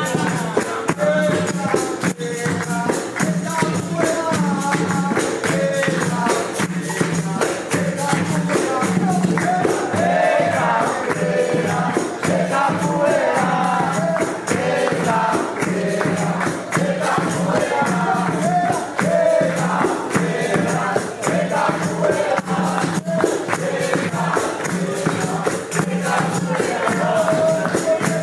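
Live Afro-Brazilian percussion with group singing: fast, dense drumming and pandeiro jingles under several voices singing together.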